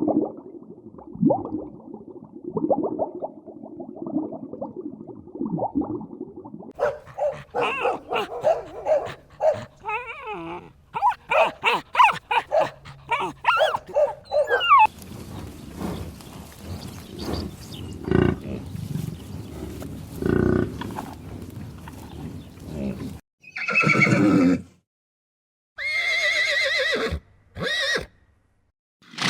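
A run of short farm-animal call clips, among them horses whinnying. The whinnies are loud, separate calls in the last few seconds.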